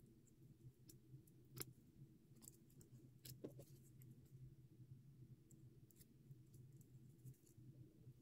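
Faint, scattered light clicks and crackles of paper cut-outs and adhesive foam squares being handled and peeled, over a steady low hum.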